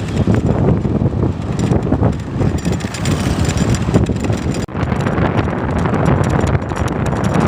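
Road noise from a large vehicle speeding past on a highway, engine and tyre rumble mixed with wind buffeting the microphone, with a brief dropout about two-thirds of the way through. No horn is heard.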